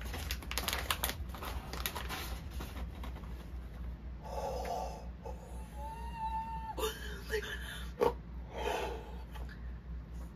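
Crinkling and tearing of a kraft-paper sachet, then a purple latex party balloon being blown up by mouth in three long puffs of breath.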